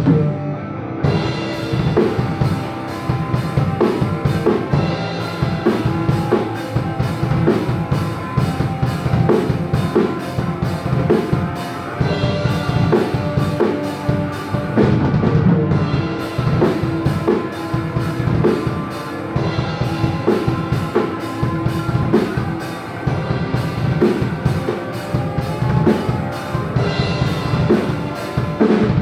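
A hardcore metal band playing live in a rehearsal room: electric guitars through amplifiers over a drum kit keeping a steady beat.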